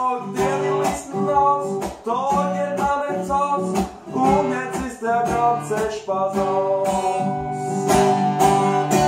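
Live song: a male voice singing into a microphone over a strummed acoustic guitar, in a steady rhythm.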